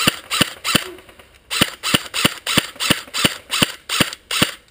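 G&G CM16 Raider DST airsoft electric rifle (M4-type AEG) firing a string of single shots, about a dozen sharp cracks at roughly three a second, with a brief pause about a second in.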